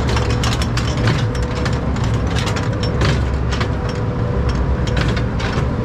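Log flume ride machinery running: a steady low rumble with a faint hum and dense, irregular clattering, as the boat is carried toward the final drop.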